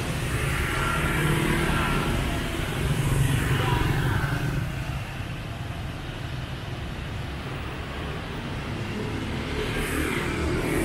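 City street traffic dominated by motor scooter engines: a steady low engine hum with scooters and cars passing, a little louder in the first few seconds, easing in the middle and building again near the end.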